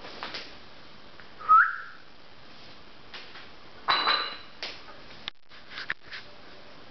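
Small pet parrot calling: a short, loud rising whistle about a second and a half in, then a harsher call around four seconds, with scattered scratchy clicks as it plays.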